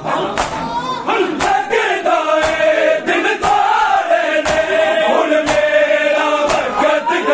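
Men's voices chanting a Punjabi noha lament together in long, wavering held notes. Sharp open-hand slaps on bare chests (matam) keep a steady beat about once or twice a second.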